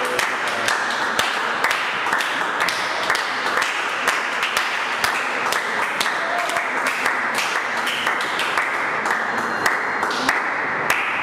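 Congregation applauding, a dense, steady clapping in praise.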